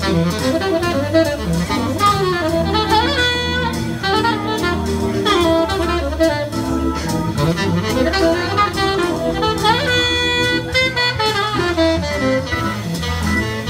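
Live jazz saxophone playing a melodic line with sliding scoops into notes, over a bass line and drum-kit accompaniment.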